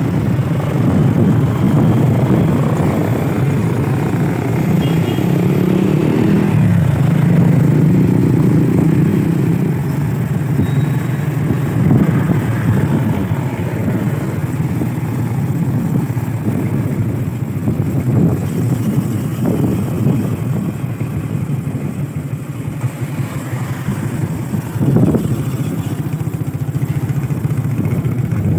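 Small motorcycle engine running steadily while riding along a street, swelling a little for a few seconds early on. A brief knock about 25 seconds in.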